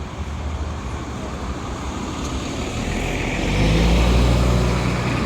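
A bus engine running at steady revs as the bus drives close past, growing louder to a peak about four seconds in and then starting to fade.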